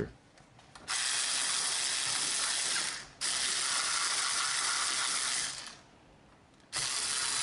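Cordless electric screwdriver running as it drives screws through a deadbolt lock's mounting plate. It runs in three stretches of a couple of seconds each, with short pauses between.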